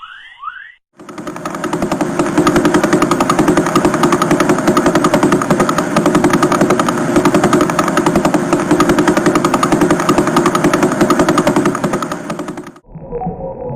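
Radio pulsar signal played as audio: a fast, evenly spaced train of pulses that merges into a steady rattle, starting about a second in and cutting off suddenly near the end.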